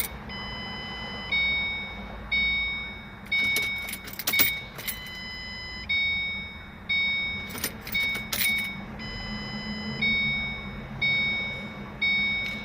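An electronic warning chime dinging over and over, about once a second, each ding fading before the next, with a few sharp clicks among the tones and a steady low hum underneath.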